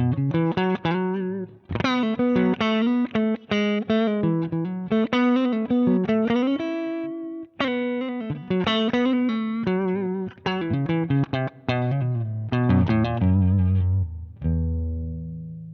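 Electric guitar played through a Zander Circuitry Surplus overdrive pedal: a quick riff of picked notes and chords with a couple of short breaks. Near the end it settles on a chord that is left to ring and fade.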